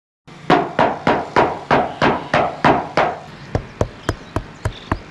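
Bare knuckles knocking on a van's sheet-metal roof panel. First comes a run of about eight loud knocks, about three a second, each ringing on hollowly. After about three seconds the knocks on the sound-deadened van turn short, dry and quieter, about four a second, its panel damped by deadening material.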